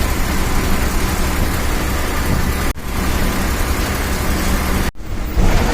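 Bus running on the highway, heard from inside the cabin: a steady engine rumble with road and tyre noise. The sound drops out sharply for a split second twice.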